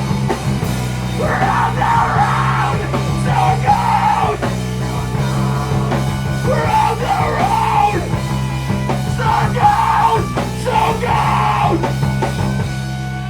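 Live punk/hardcore band playing loud distorted guitars and bass, with shouted, screamed vocals in short phrases over them. Near the end the shouting stops and the music dies away into a held, ringing chord.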